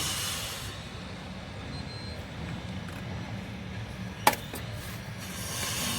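A low steady hum, then a sharp relay click about four seconds in as the old Fujitsu R22 split air conditioner is switched on. Just before the end, a steady electrical hum sets in from the compressor. The compressor is seized and draws locked-rotor current without turning.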